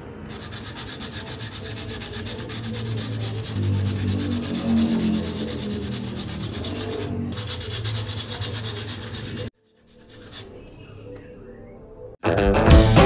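Hand sanding or rubbing with fast, even back-and-forth strokes, which stops about three-quarters of the way through. Near the end, loud drum-led music starts.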